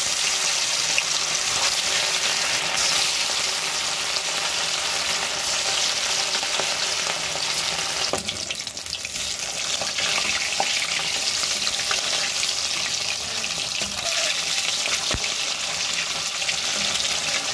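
Rohu fish steaks sizzling steadily as they deep-fry in hot refined oil, with a few light taps of the spatula as the pieces are turned.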